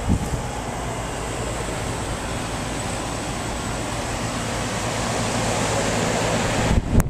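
Pressure washer running, its water jet spraying with a steady hiss over the steady hum of its motor. Near the end the spray noise breaks off briefly, and there is a sharp knock.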